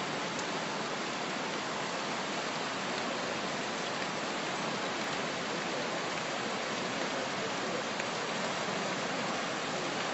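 Steady, even rush of fast-flowing floodwater from a creek running high over its banks and past a concrete wall.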